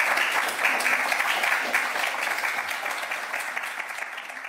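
Audience applauding, a dense patter of many hands clapping that slowly tapers off toward the end.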